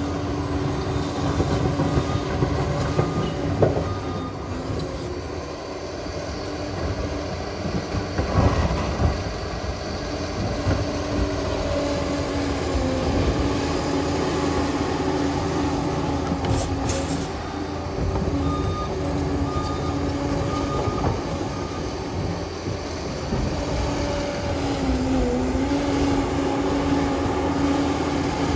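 Liebherr 746 crawler dozer working: its diesel engine runs with a steady whine while the steel tracks clank and squeal, with a few sharp knocks along the way.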